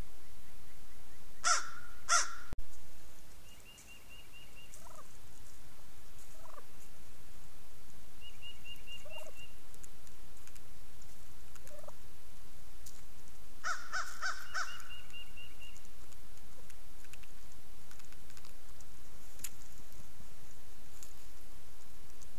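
Wild turkey gobblers gobbling: two loud gobbles in quick succession near the start and another about two-thirds of the way through, with fainter short turkey calls in between.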